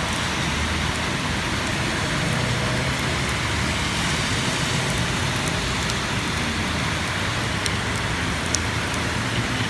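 Steady rain falling hard on the ground and surfaces, with scattered sharp drop ticks.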